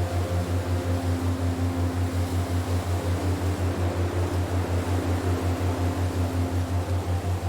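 A relaxation soundscape of wind: a steady, even hiss over a low hum that pulses about five times a second, with a few faint held tones.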